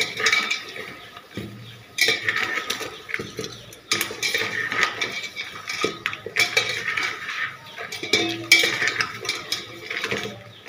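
A wire spider skimmer scraping and clinking against a stainless steel bowl as it stirs vegetables in liquid nitrogen. The clatter comes in repeated spells about every two seconds.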